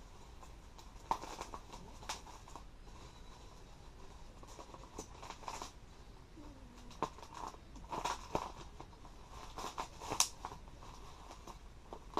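Packaging being handled during an unboxing: intermittent rustling and crinkling of wrapping with scattered small clicks and knocks, the sharpest click about ten seconds in.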